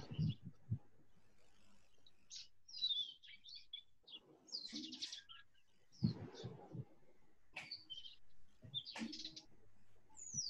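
Birds chirping faintly in the background: short, high, repeated chirps, some gliding down in pitch. A low knock comes right at the start and a brief rustle about six seconds in.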